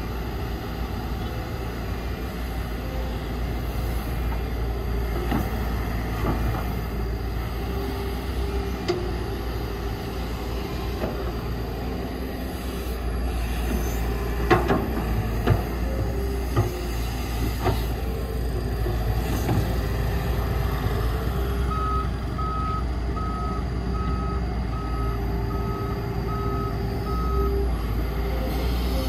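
Heavy diesel earthmoving machinery running steadily, with a vehicle reversing alarm beeping. A higher-pitched beeper sounds evenly for several seconds near the end, and a few sharp metallic knocks come midway.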